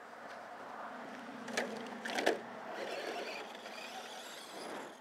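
Traxxas short-course RC truck: two sharp knocks about a second and a half and two seconds in, then the small electric motor whirring and tyres scrabbling on dirt as the truck drives off. The sound stops shortly before the end.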